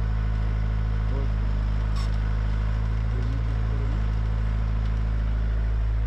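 Komatsu PC60 excavator's diesel engine running steadily while the machine digs and lifts a bucket of soil, with a short click about two seconds in.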